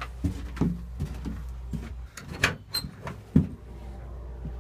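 Doors being opened and closed: a string of knocks and clunks from a wooden outer door and an inner door with a metal pull handle, the loudest clunk a little past three seconds in. A steady low rumble runs underneath.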